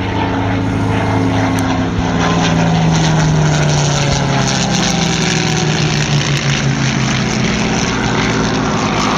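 Piston-engined WW2 fighter flying past, its propeller-engine drone loudest about three seconds in and falling slowly in pitch as it passes.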